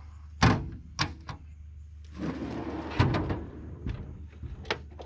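Hinged aluminium lid of a ute canopy's rear slide-out drawer shut with a sharp bang, followed by a couple of lighter knocks. Then the drawer rolls in on its runners and shuts with a thud about three seconds in, with a few small latch clicks near the end.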